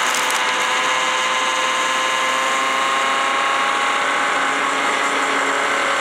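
Cheap kitchen blender running at a steady high speed, its motor whining as it grinds a jar of hard cough drops.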